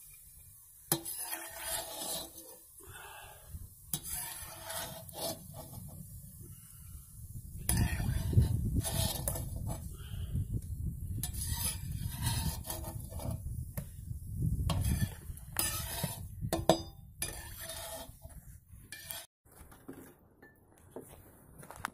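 A metal utensil scraping and clinking against the plov cauldron of hot oil in irregular strokes, with a low rumble under the busier middle stretch.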